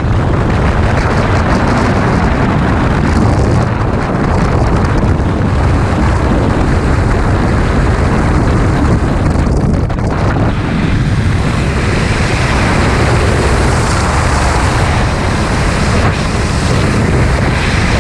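Loud, steady rush of freefall wind buffeting a skydiver's helmet-mounted camera microphone.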